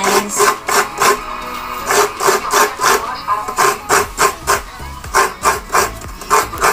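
Halved mature coconut scraped against a coconut grater's serrated blade, making a rhythmic rasping at about three strokes a second, with a short pause about a second and a half in.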